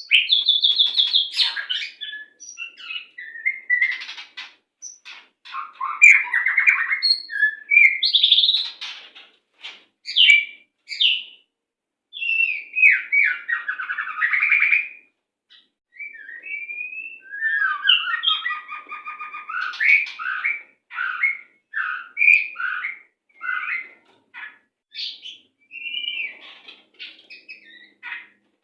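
White-rumped shama (murai batu) singing a fast, varied song of whistles, trills and harsh rasping notes, in loud phrases separated by short pauses.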